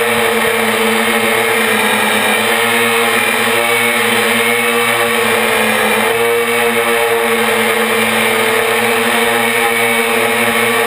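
Brushless motors and propellers of a 450-size quadcopter in flight, heard close up from the camera mounted on it: a loud, steady multi-tone whine whose pitch shifts slightly a couple of times as the throttle changes.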